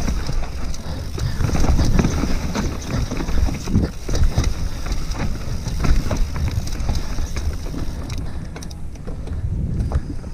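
Mountain bike riding down a dirt trail: wind on the microphone and tyre rumble over the ground, with frequent clicks and rattles from the bike. The hiss eases near the end.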